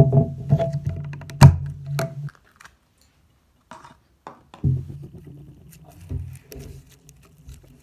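Slime being squeezed and poked, giving sharp clicking pops over a low hum. The sound drops out for about two seconds in the middle, with a few faint clicks, then picks up again.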